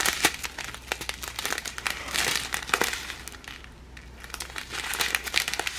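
Small plastic baggies of diamond-painting drills being handled and crinkled, giving a steady run of irregular crackles and clicks.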